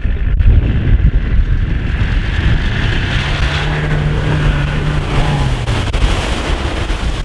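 Land Rover Discovery engine pulling steadily as the 4x4 ploughs through a flooded rut, with water and mud splashing, and the engine note dropping about five seconds in. Strong wind buffets the microphone throughout.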